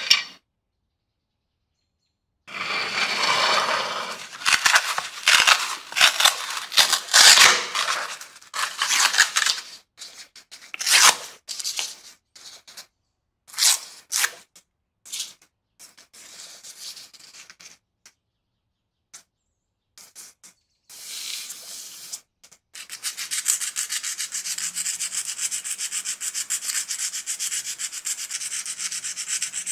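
Sandpaper rubbing by hand over the rusty, engraved metal cover of an old gas lighter. It starts in irregular strokes with short pauses, then settles into steady, continuous rubbing for the last several seconds.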